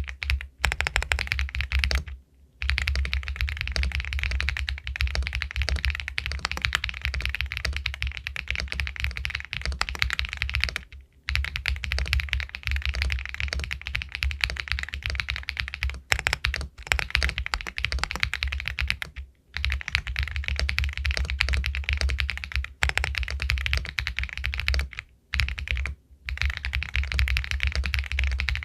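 Continuous fast typing on an Epomaker Galaxy 80 Pro aluminium mechanical keyboard with White Jade linear switches, a dense run of key clacks broken by a few short pauses.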